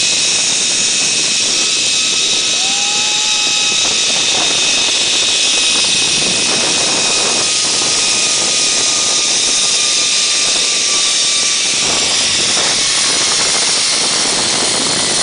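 Zip-line trolley pulleys running fast along the steel cable: a steady whine with a loud rushing noise over it.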